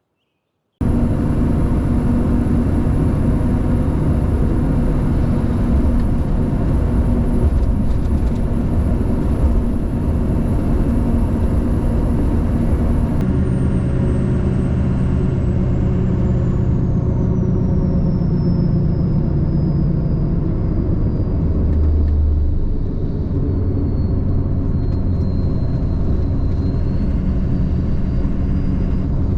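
Diesel truck driving on the road: steady engine and road noise that starts abruptly just under a second in. A faint high whine runs over it and slowly falls in pitch from about halfway through.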